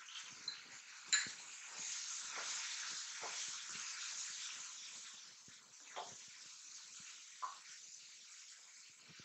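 Vegetables sizzling in a kadai as a wooden spatula stirs ground spice powder through them, with soft scraping against the pan and one sharp knock about a second in.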